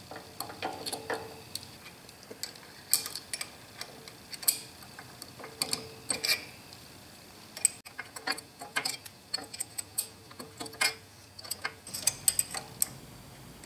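Light metallic clicks and clinks of a wrench on a hex bolt and the cast-iron thread chasing dial as it is bolted to a lathe apron. The clicks come irregularly, and some leave a short metallic ring.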